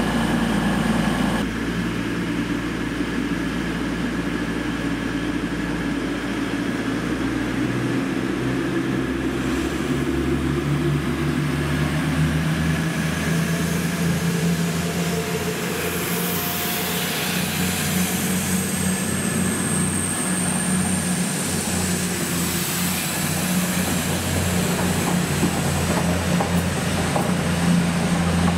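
Class 222 Meridian diesel multiple unit's underfloor Cummins diesel engines running under power as the train draws away along the platform. The engine note shifts a couple of times, and a thin high whine comes in during the second half.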